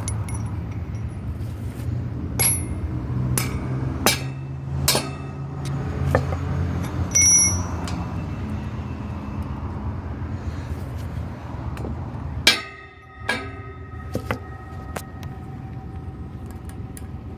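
Metal clinks and knocks as railing hardware, the leveling plate and the anchor nuts, is handled and fitted, with one louder ringing metal knock about twelve seconds in. A steady low rumble runs underneath.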